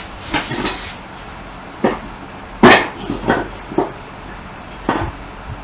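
About half a dozen sharp knocks and clanks of metal on metal, unevenly spaced, the loudest a little under three seconds in, as a stuck scooter engine part is worked loose.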